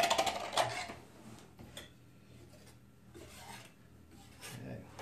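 Rasping scrapes from painting supplies being handled: a quick run of strokes in the first second, then a few fainter rubs.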